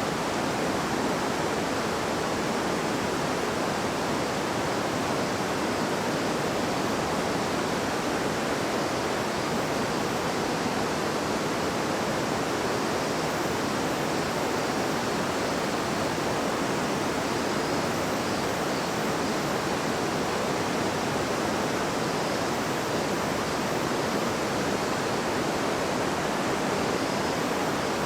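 Gentle babbling river: a steady, even rush of flowing water.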